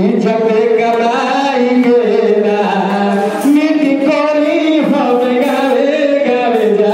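A man singing a song into a microphone, with long held notes that rise and fall, heard over the hall's sound system.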